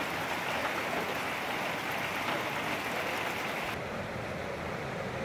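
Steady rain hiss that stops abruptly a little over three and a half seconds in, replaced by a duller steady noise.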